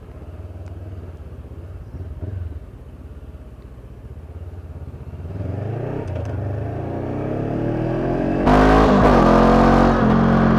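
Honda CB500X parallel-twin engine ticking over, then pulling away with the revs rising steadily over several seconds. About two seconds before the end the sound jumps suddenly louder, with a steady engine note under a heavy rush of wind.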